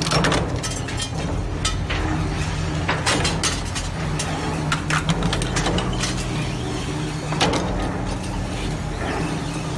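A crusher machine runs with a steady low drone while material breaks in its jaws with irregular sharp cracks and snaps. The loudest crack comes about seven and a half seconds in.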